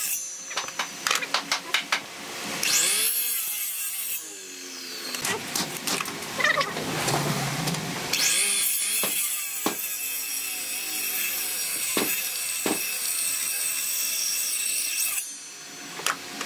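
A power tool working wood: a run of sharp clicks, then the motor spins up twice with a rising whine and runs steadily through the wood, with a few separate knocks along the way.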